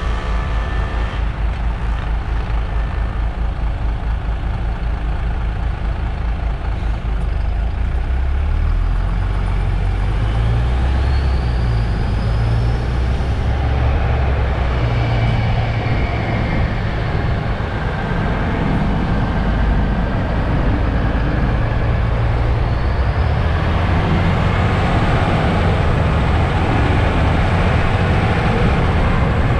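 MAN Lion's City GL articulated diesel city bus running, heard from outside, with a heavy low engine rumble that swells and eases. Two rising whines come about a third of the way in and again past two-thirds.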